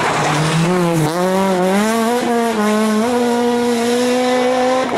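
R2-class rally car engine at high revs, its pitch climbing over the first three seconds as the car accelerates and then holding high, with a brief break near the end.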